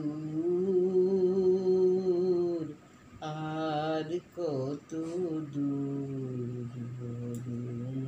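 One voice singing the closing notes of a Bengali devotional song, drawing each syllable out into long held notes a second or more each, with a slight waver. The longest, lowest note starts about halfway through and is still held at the end.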